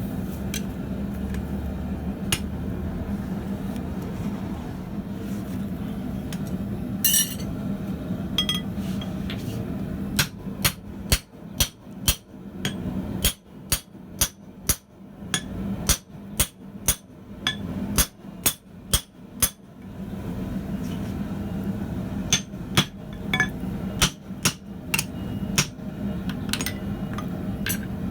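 Hand hammer striking steel on an anvil during forging: a run of sharp, ringing blows about two a second, a pause, then a second run, over a steady low hum.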